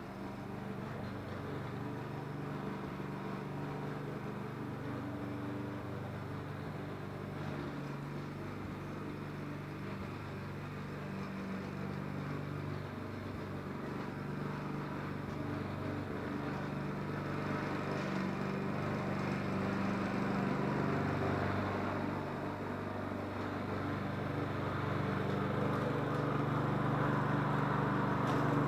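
Engine of a remote-controlled lawn mower running steadily, growing louder over the second half.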